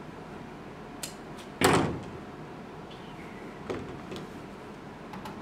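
Knocks and taps of hands and a screwdriver working at a wall-mounted pump relay controller: one loud knock about a second and a half in, with a few lighter clicks around it.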